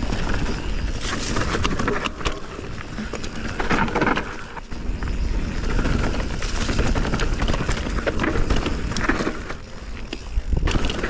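Canyon Spectral 29 mountain bike riding down a leaf-covered dirt singletrack: tyres rolling on the dirt, with the bike clattering over bumps throughout.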